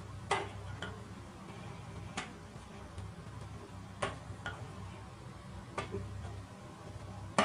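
Sharp clicks at irregular intervals, about seven in all, as thin strips of inner-tube rubber are pulled tight and knotted to tie a leather pouch onto a homemade slingshot.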